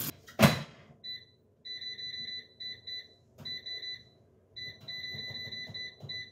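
A sharp knock about half a second in, then a string of electronic beeps on one high tone, some short and some held for about a second, in an irregular pattern.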